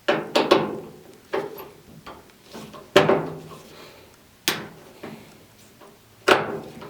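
About seven separate knocks and clicks, each with a short ringing fade, spaced irregularly a second or so apart: tools and metal parts being handled while the screws of a Samsung gas dryer's front panel are taken out.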